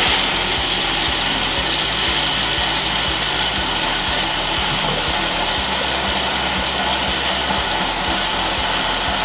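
Countertop food processor switched on and running steadily at full speed, its blade whirring through roasted tomatoes and cashews to blend them into a creamy sauce.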